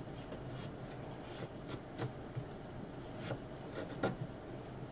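Irregular light clicks and taps of food being handled and prepared on a kitchen bench, over a steady low hum.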